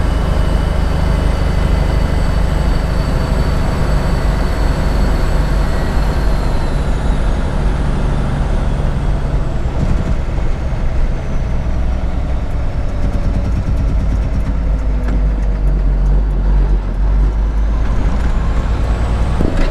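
1987 International Paystar dump truck's diesel engine running while the truck is driven, heard from inside the cab as a steady low drone. A fainter whine slowly falls in pitch over several seconds, then rises again near the end.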